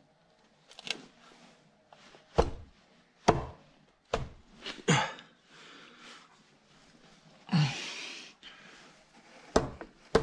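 BMW N62 V8 front timing cover being worked onto the engine by hand. It knocks and clunks against the block in a string of sharp, irregular knocks as it is pushed into place. There is a half-second rasp about seven and a half seconds in.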